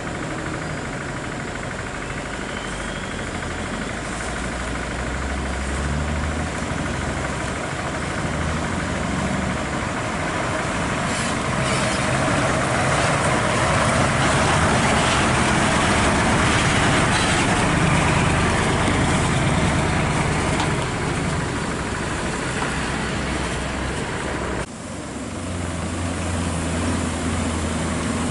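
Heavy diesel trucks hauling excavators on lowboy trailers over a dirt road, engines running steadily, growing louder through the middle. After a sudden cut near the end, a low steady engine drone from a Scania R580 tractor unit.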